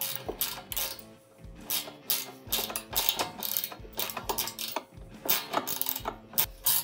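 Ratcheting wrench clicking in quick, uneven runs as a 5/16 bolt is tightened down, with soft background music underneath.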